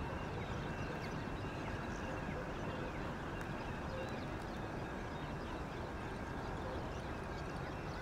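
Outdoor ambience: a steady low rumble with faint short bird calls scattered through it.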